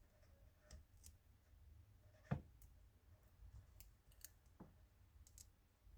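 Faint scattered clicks and light scrapes of a small hand tool picking old adhesive off a phone's camera lens frame, with one sharper click a little over two seconds in.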